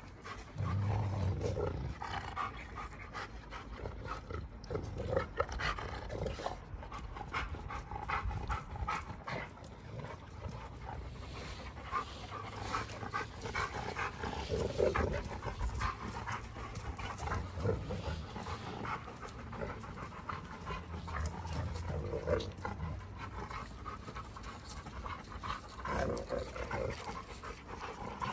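Two giant schnauzers wrestling, growling in repeated low bouts and panting heavily, with short sharp scuffling and snapping noises.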